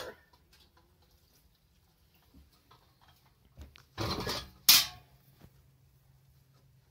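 Kitchen utensils knocking against dishes and a cast iron skillet while mixing pancake batter: a few faint clinks, then about four seconds in a short clatter and, just after it, one sharp, loud clink.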